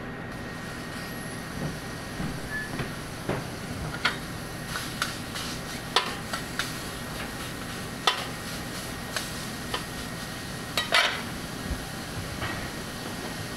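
Metal spatula clacking and scraping on a steel teppan griddle as sliced beef is spread out: a dozen or so sharp irregular knocks, the loudest near the middle and about two-thirds of the way through. Under it runs the steady hum of the kitchen's extractor hood.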